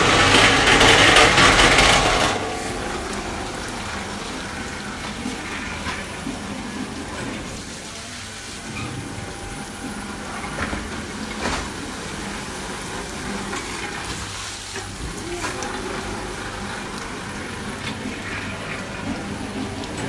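Automatic carpet-washing machine running, its spray jets gushing water onto a carpet turning on the rollers. The rush of water is loudest for the first two seconds, then settles into a steadier wash of water and machine noise, with a couple of sharp clicks near the middle.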